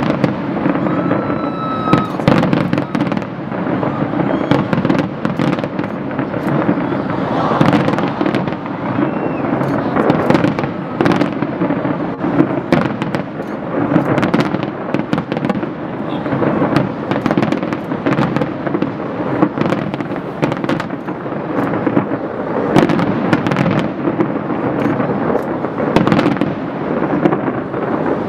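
Continuous fireworks barrage: many sharp cracks and bangs in quick, uneven succession over a steady rumbling crackle, with no let-up.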